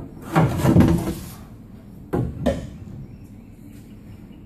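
Wooden knocks and rubbing as a wooden centerboard trunk is handled and tipped upright in a boat hull: a cluster of bumps in the first second or so, then two sharp knocks about two seconds in.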